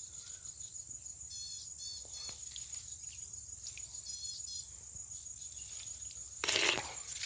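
Steady high-pitched chirring of crickets or similar insects, with a few short clusters of chirps. Near the end comes one brief, louder burst of noise.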